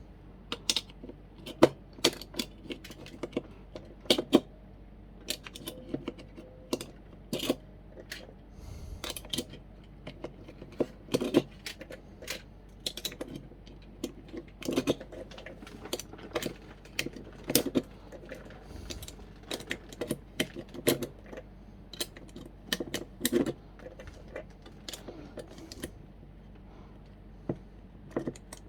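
Speed loader for Glock magazines being worked on a SIG Sauer P226 magazine, pressing cartridges in one after another: a long run of separate mechanical clicks at an uneven pace.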